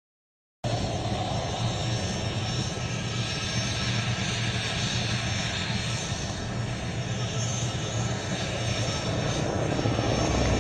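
Helicopter in flight: steady engine and rotor noise with a strong low hum, cutting in abruptly about half a second in.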